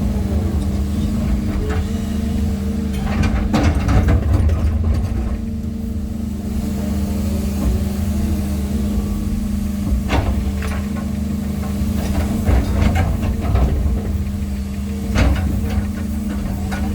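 Diesel engine of heavy machinery, typical of an excavator setting natural stones, running steadily. Several sharp knocks and scrapes of rock come over it: a cluster a few seconds in, one near the middle and one near the end.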